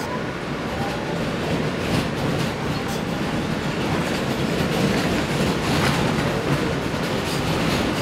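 New York City subway train running along an elevated track, heard from inside the car: a steady rumble of wheels on rail with occasional clacks over the rail joints.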